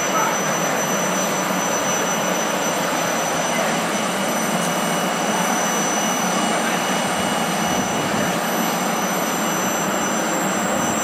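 Polregio electric multiple unit rolling slowly past along the platform: a steady rush of running noise with a constant high whine on top.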